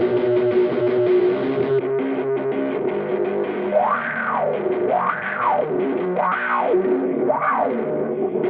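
Electric guitar played through BIAS FX amp and effects software, with distortion. About four seconds in, a wah-like filter sweep switches on and rises and falls four times, about once a second.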